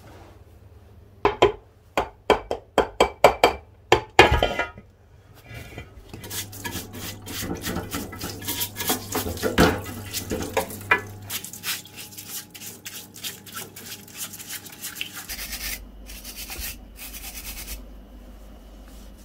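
A quick run of sharp metal clicks and a ringing clink as the bell-housing bolts are handled, then a stiff brush scrubbing the Ford Consul gearbox casing in a parts washer for several seconds, and near the end quieter rubbing as a wooden stick and cloth work grime off the casing.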